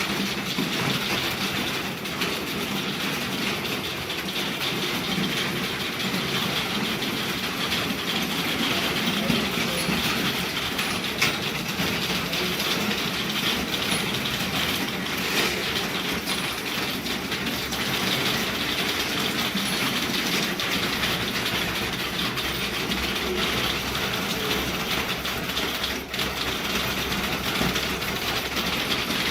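Fast, continuous typing on a computer keyboard: a rapid, even clatter of keystrokes with no pauses.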